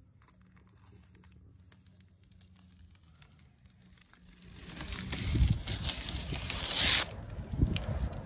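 Aerosol spray can spraying paint: one hiss that builds from about four and a half seconds in and cuts off sharply about two seconds later, over low rumbling. Before it, only faint clicks and handling sounds.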